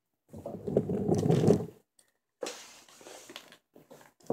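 Muffled rustling and bumping, likely from the camera being handled and repositioned, for about a second and a half. Then come lighter taps and scrapes of a hatchet working a sycamore spoon blank on a wooden chopping stump, with a sharper knock at the very end.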